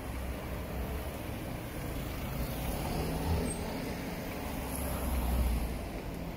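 Street traffic at a junction: cars and a motor scooter passing close by, a steady engine and tyre rumble that swells as a vehicle passes about five seconds in.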